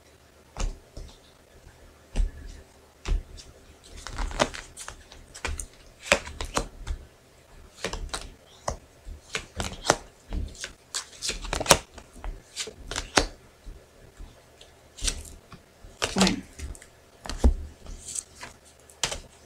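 Angel oracle cards being handled and laid out on a plastic tablecloth: irregular clicks, taps and short slides of card against plastic, several a second at times.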